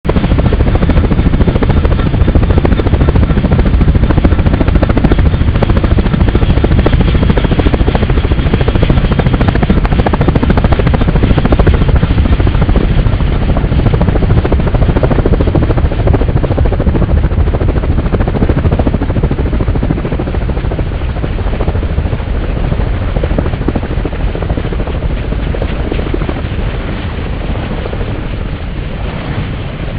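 Helicopter lifting off close by, loud and steady, then fading gradually over the second half as it climbs away.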